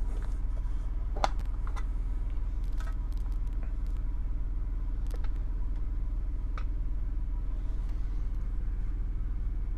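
A steady low hum, with a few light metallic clicks and taps as a collector's tin is opened and a pocket knife is handled; the sharpest click comes about a second in.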